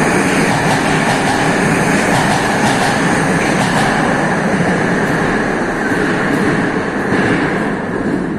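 Moscow Metro train pulling out of the platform and running into the tunnel: loud, steady wheel-and-rail noise that eases off a little near the end.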